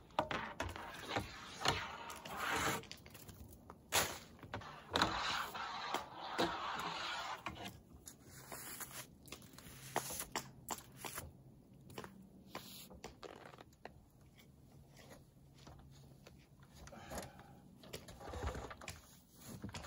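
Yard rake scraping snow off roof-mounted solar panels in a few strokes during the first several seconds, followed by scattered knocks and clicks and quieter stretches.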